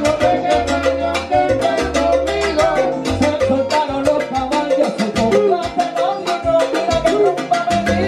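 Live salsa band playing with dense, steady percussion including congas, over a stepping bass line and melodic lines.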